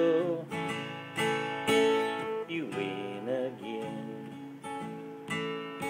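Acoustic guitar strumming the closing chords of a slow country song, each chord ringing out and the playing growing quieter. A held sung note trails off about half a second in.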